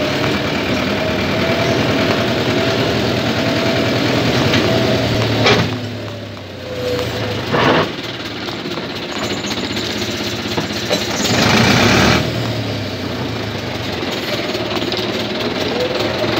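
Farm tractor engine running steadily as the tractor drives over a rough dirt track, dipping in level briefly about six seconds in, with a few short louder noisy bursts along the way.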